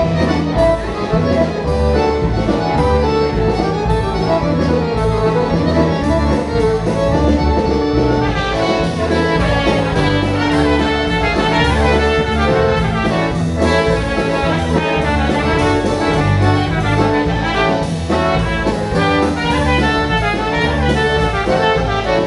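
Live polka dance band playing, with horns (brass and saxophone) carrying the tune over a steady rhythm section.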